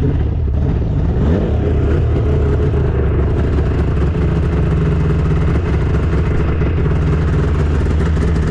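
2001 Yamaha SX700R snowmobile's 700 cc two-stroke triple running steadily just after starting, with the choke still on.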